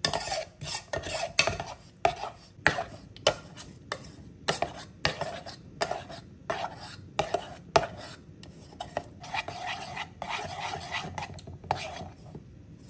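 Metal spoon stirring a thin cornstarch glaze in a small steel-lined saucepan, scraping and clinking against the bottom and sides in quick repeated strokes, about two a second, with a few longer scrapes near the end.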